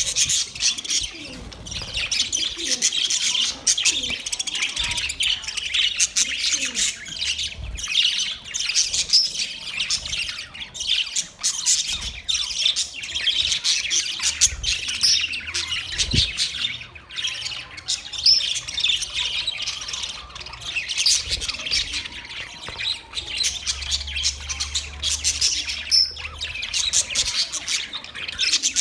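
Budgerigars chirping and chattering nonstop, many quick high calls overlapping with occasional harsher squawks.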